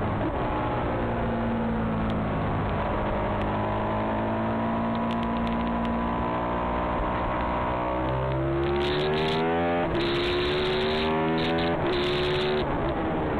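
On-board sound of a Ducati 996R's V-twin engine under race load. It holds fairly steady revs through a long corner, then accelerates hard out of it. In the last few seconds the pitch rises and drops back with each of several quick upshifts.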